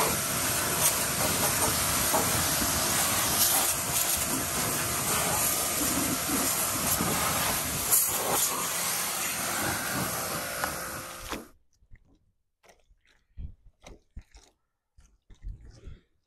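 Kärcher pressure washer's jet spraying water against a pickup truck's underside and the wet pavement: a steady, loud hiss that cuts off suddenly about eleven seconds in. Then a microfiber cloth wiping a wet body panel, a few faint, short rubs.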